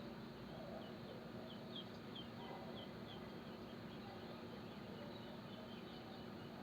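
Small birds chirping in a nature-sounds recording being played back: a quick run of short high chirps, about three a second, for a couple of seconds about a second in. A faint steady hiss and low hum lie underneath.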